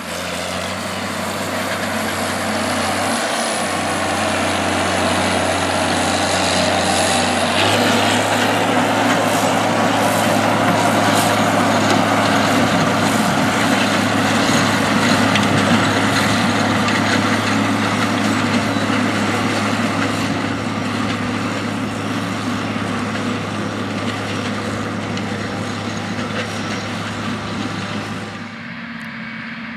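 John Deere 4440 tractor's six-cylinder turbo diesel engine running steadily under load as it pulls a John Deere 780 Hydra Push manure spreader flinging manure out the back. The sound drops a little near the end.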